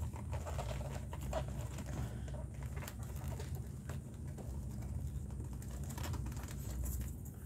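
Leather glove lace and lacing needle being drawn through the web's lacing holes: a run of faint irregular clicks and scratches, over a low steady hum.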